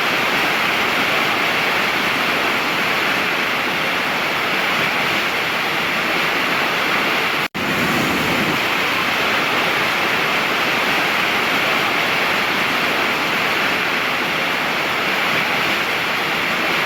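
Waterfall: a steady rush of falling water, with a momentary gap about seven seconds in where the recording cuts and resumes.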